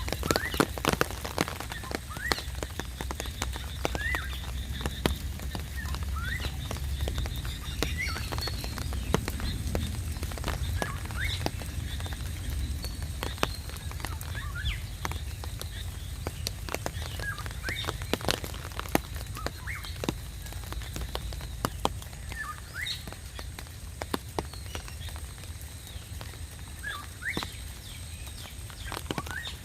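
Rain dripping and pattering: irregular drops striking surfaces, with short rising plinks as drops fall into water. A low rumble runs underneath, heavier for roughly the first seven seconds.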